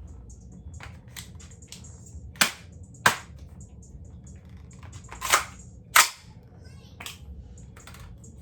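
Sharp metallic clacks of an AR-15 being loaded by hand: a 60-round magazine is seated in the magazine well and the charging handle is run to chamber a round. There are four loud clacks in two pairs about half a second apart, with lighter clicks and rattles between them.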